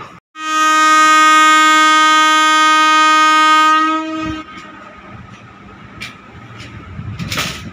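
An electric locomotive's horn sounding one long, steady blast of about four seconds, then stopping, leaving a low rumble of the train with a few clicks and a short burst of noise near the end.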